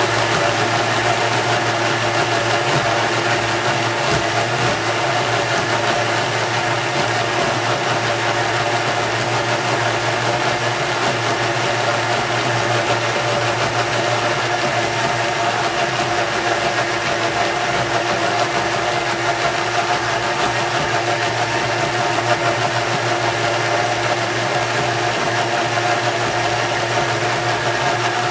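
Thermomix blender running steadily at speed 9, its blade pureeing hot cooked vegetables into a smooth stock paste: a loud, even motor and blade whir that doesn't change.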